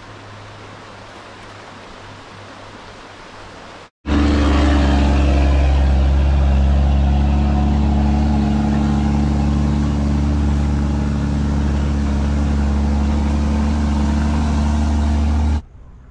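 Heavy tanker truck's diesel engine running loud and steady as it drives past on a gravel road, a deep drone that starts suddenly about four seconds in and cuts off near the end. Before it there is only a faint steady hiss.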